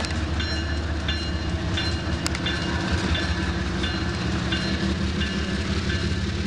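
Train rumbling slowly through the station, with clickety-clack from the wheels. A warning bell dings steadily over it, about one and a half times a second.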